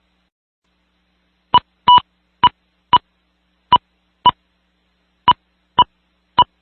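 A series of nine short, loud electronic beeps at one pitch over the amateur radio repeater, irregularly spaced and starting about a second and a half in; one of them, about two seconds in, is a little longer.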